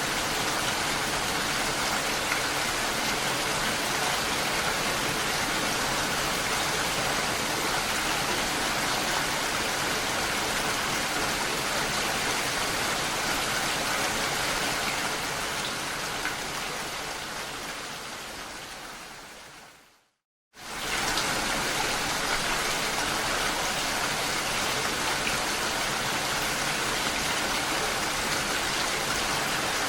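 Steady rain falling on a lake's water surface. About two-thirds of the way through it fades away to a moment of complete silence, then comes back suddenly at full level.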